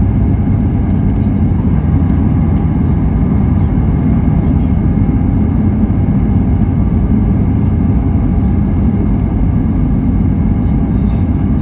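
Steady cabin noise inside a Lufthansa Airbus A320 in flight: a constant low rumble of the engines and airflow past the fuselage, heard from a window seat near the wing.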